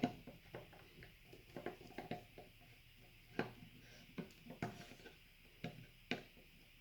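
Faint, scattered clicks and taps of small screws being undone from a gel blaster gearbox shell and set down on the bench, about one or two a second.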